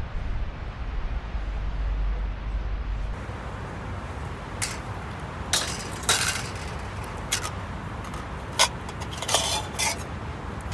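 A low rumble for about three seconds, then a series of about seven sharp clinks and clatters of camp cookware and utensils being handled.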